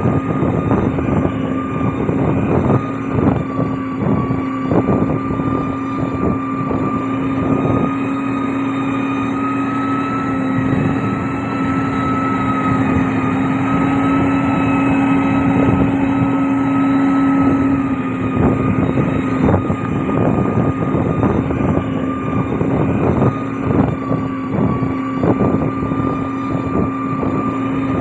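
Heavy diesel road-construction machine running, a steady engine drone with a steady whine above it. Irregular clattering and crunching runs over it, lighter in the middle stretch and heavier again in the last third.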